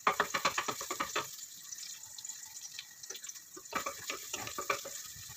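Garlic sizzling and crackling in hot oil in a stainless steel pot as it is sautéed and stirred with a wooden spoon. The crackle comes in two busy spells, one at the start and another about four seconds in, over a steady hiss.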